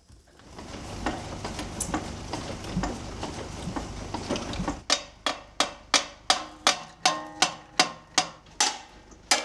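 Hammer blows on the seized rear brake of an old Nuffield tractor, struck to free it: from about halfway in, sharp metal strikes about three a second, each with a brief ring. Before that, a few seconds of irregular scraping and knocking.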